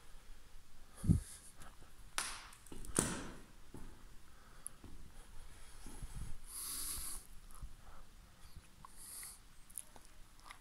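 Footsteps and phone handling noise: a dull thump about a second in, a few sharp clicks or crunches, and a short hiss near the middle.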